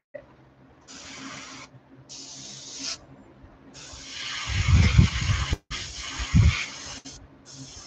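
Airbrush spraying paint in several short bursts of air hiss, stopping and starting as the trigger is worked. Low rumbling bumps come in the middle, during the longest burst.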